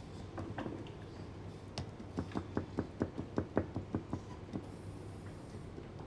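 A quick run of light taps or clicks, about five a second, for roughly two and a half seconds starting near the second mark, over a steady low room hum.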